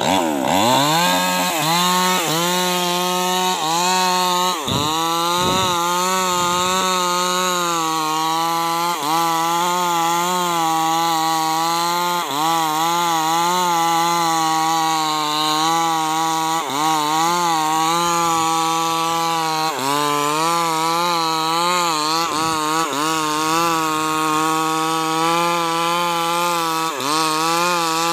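Maestro 6500L two-stroke chainsaw at high throttle cutting through a thick, hard acacia log. The engine note keeps wavering and dips sharply every few seconds as the chain is loaded in the wood, then picks back up.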